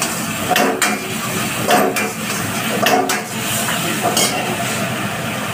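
A metal ladle scraping and knocking against an iron wok while stir-frying chilli chicken, with a sharp clank about once a second over a steady hiss of frying.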